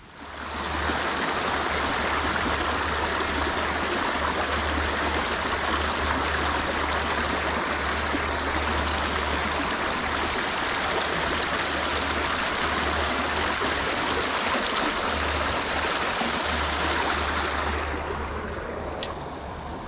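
River water flowing steadily, a loud even rushing that starts abruptly and eases off near the end.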